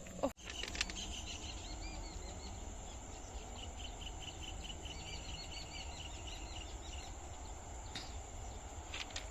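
A bird calling in a rapid run of short, high, repeated chirps over a steady low outdoor rumble. A sharp click comes right at the start.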